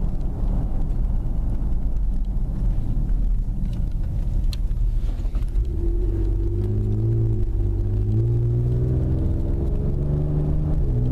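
Ford Explorer Sport's twin-turbo V6 through an aftermarket Borla exhaust, heard from inside the cabin with the window up. It starts as a low steady exhaust rumble while driving. About halfway in, the engine note rises under acceleration, dips at an upshift about seven seconds in, then climbs again and drops near the end.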